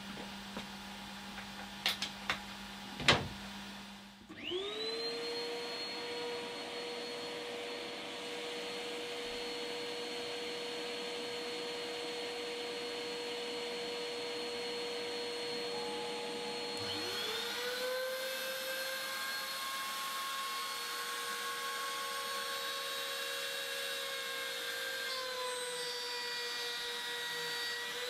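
A couple of sharp clicks, then a motor spins up to a steady high whine about four seconds in, and a second motor spins up at about seventeen seconds and joins it. These are the dust extraction and the trim router spindle of an Ooznest WorkBee CNC machine starting up and running steadily, ready to cut.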